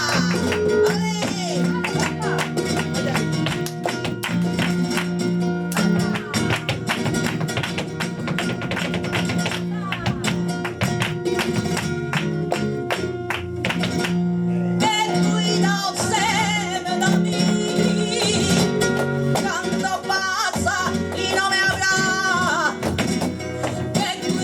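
Live flamenco fandango: guitar playing under dense, rapid percussive strikes through the first half, then a flamenco singer's voice comes in over the guitar about halfway through.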